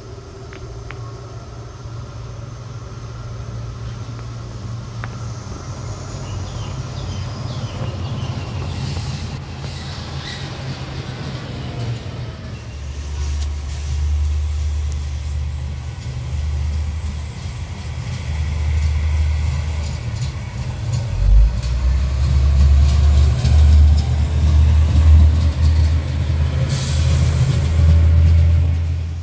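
Yellow rail maintenance vehicle running on metro depot track: a steady low engine rumble that grows louder as it draws close and is loudest over the last several seconds, then cuts off suddenly.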